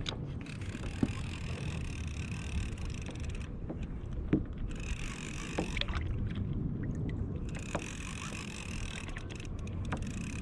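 Fishing reel whirring in three spells while a lively fish is played from a kayak, over a steady low rumble of wind and water.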